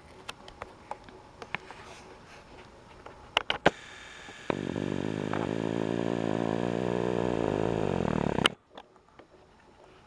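Hitachi RAS-HM28H room air conditioner making an abnormal noise. Scattered light clicks come first, then about four and a half seconds in a loud, steady droning buzz with many overtones starts, lasts about four seconds and cuts off suddenly. The owner says the noise begins after hours of running and wonders whether it is a lack of lubricating oil.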